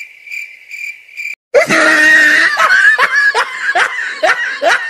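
Cricket-chirp sound effect, a high pulsing chirp about three times a second, cut off after about a second and a half by a loud cartoonish laughter sound effect with repeated rising cries.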